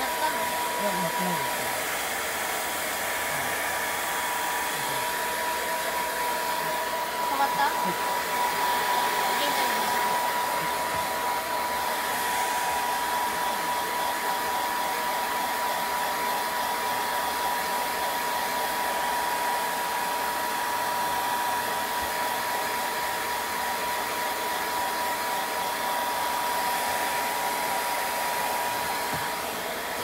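Handheld hair dryer blowing steadily on a dog's wet coat, a constant rush of air with a thin steady whine running through it.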